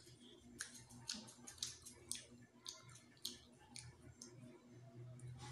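Soft wet clicks and lip smacks of a person chewing food eaten by hand, about a dozen short sharp ticks over the first four seconds.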